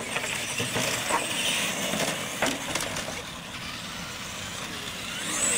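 Radio-controlled monster trucks racing across concrete: motors running and tyres rolling, with a few short knocks in the first half. A high whine rises near the end.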